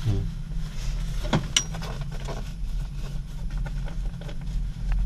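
Steady low hum of a gondola cable car cabin travelling along its cable, heard from inside the cabin, with a couple of short sharp clicks about a second and a half in.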